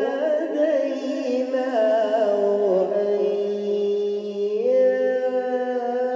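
A man's voice chanting Quran recitation in slow melodic tajweed style: one long, ornamented phrase of held notes, the pitch stepping down about halfway through and back up near two-thirds through.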